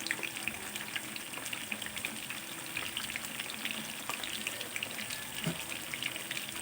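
Eggplant frying in hot oil in a pan: a steady sizzle with many small, irregular crackles and pops.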